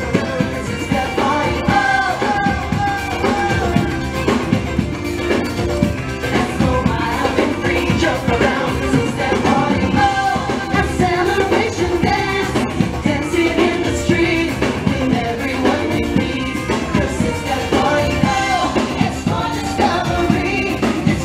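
Live street band playing dance music, with a drum kit keeping a steady beat under a singing voice.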